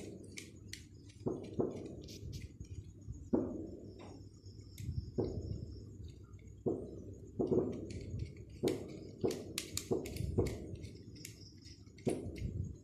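Irregular light knocks and clicks, about a dozen, as a plastic wall socket and its cable cores are handled and the cores are fitted into the socket's terminals.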